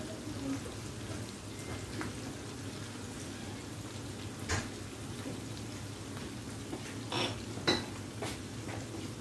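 Prawns frying in butter in a non-stick frying pan: a steady, fairly quiet sizzle, with a few short sharp clicks about halfway through and near the end.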